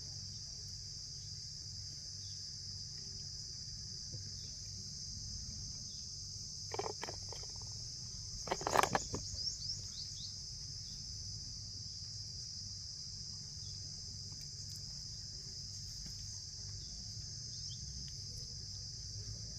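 Steady high-pitched chirring of insects, crickets or cicadas, over a low wavering hum. About seven and nine seconds in come a few short, sharp scraping knocks, the later ones the loudest, from the comb being cut or handled.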